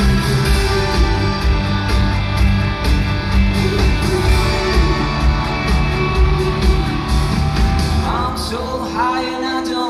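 Live pop-rock band playing in an arena: a driving drum beat under sustained keyboard and guitar. Near the end the low beat drops away and a voice sings in gliding, held notes.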